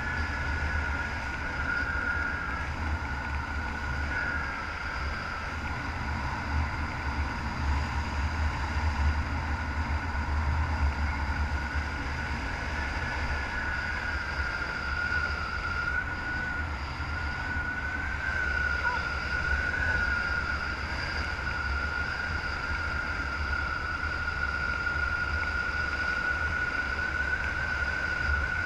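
Wind rushing over the camera's microphone during a descent under an open parachute: a steady low buffeting rumble with a thin high whistle that wavers slightly in pitch.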